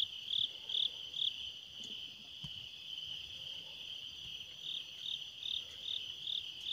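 Crickets calling at night: one chirps in an even rhythm of about two and a half chirps a second, stopping a second or so in and starting again near the end, over a steady high trill from another insect. A soft low bump about two and a half seconds in.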